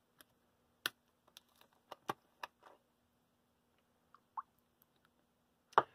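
A few scattered light clicks and taps from a plastic measuring cup and a milk carton being handled on a plastic cutting board, over a faint steady hum.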